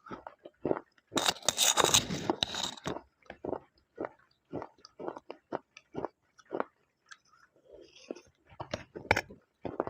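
Slate pencil bitten and chewed close to the microphone: a loud grinding crunch of a bite about a second in, then steady crunchy chewing at about two chews a second.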